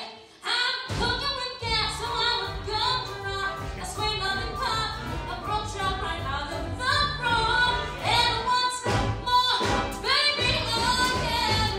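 A woman singing a Broadway show tune with orchestra accompaniment. After a short break just after the start, she sings a quick run of phrases and holds one long note near the end.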